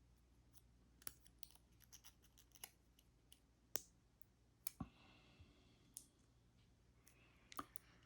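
Faint, scattered clicks of metal lockpicking tools working inside a plastic door lock cylinder, about nine at irregular intervals.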